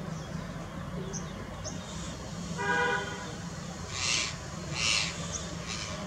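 Rose-ringed parakeets giving two harsh screeches, about four and five seconds in, with a few faint short chirps. A short steady-pitched hoot-like tone sounds a little before them, over a steady low background rumble.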